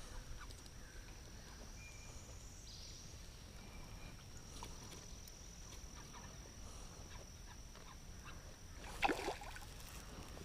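Quiet outdoor river ambience with a steady high thin tone, a few faint short animal calls, and a brief louder splash-like or knocking sound about nine seconds in.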